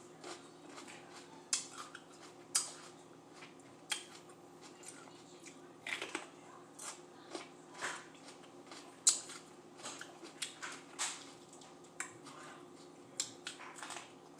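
Raw mini sweet peppers being bitten and chewed close to the microphone: irregular crisp crunches between quieter stretches of chewing.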